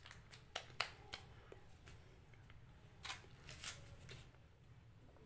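Faint light taps and rustles from sugar-dusted cookies being handled and set down, a few separate small clicks.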